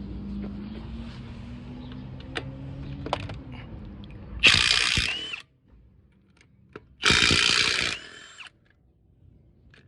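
Cordless electric impact wrench with a 19mm socket hammering lug nuts loose on a front wheel: two bursts of rapid rattling about a second long each, a few seconds in, each ending in a short falling whine as the motor spins down. A low steady hum comes before them.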